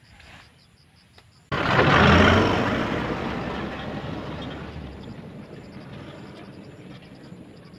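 Dump truck driving past close by: its engine and tyres come in abruptly about one and a half seconds in, loudest just after, with a low engine rumble, then fade steadily as it drives away.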